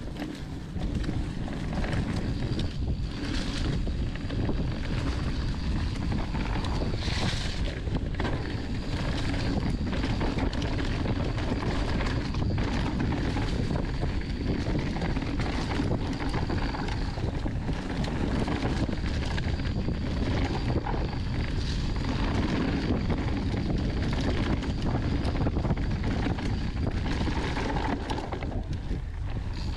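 Wind buffeting the microphone over the rumble of a mountain bike's tyres on a rough dirt trail during a fast descent, with frequent short knocks and rattles. A thin high whine runs through much of it, breaking off in the middle and again near the end.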